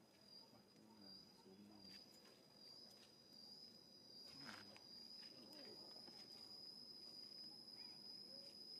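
Faint forest ambience: an insect singing one steady, high, thin tone without a break.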